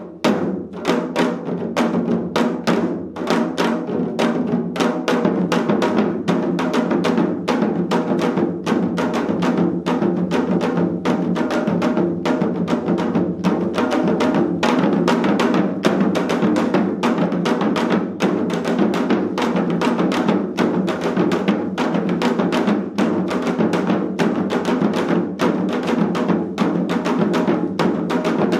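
Four janggu, Korean hourglass drums, played together in a fast, steady rhythm of sharp stick strokes. The playing picks up again after a momentary break right at the start.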